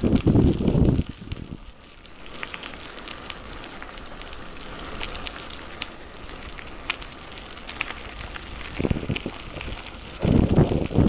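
Wind rumbling on the microphone for about the first second and again near the end, with a steady crackling hiss between the gusts.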